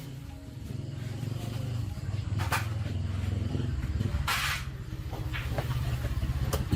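Restored STIHL two-stroke chainsaw idling after a cut: a steady low putter, with a few short hissy bursts over it.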